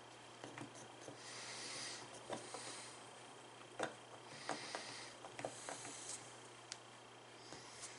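Airbrush hissing in short bursts of about a second, three times, with small clicks and taps in between over a steady low hum.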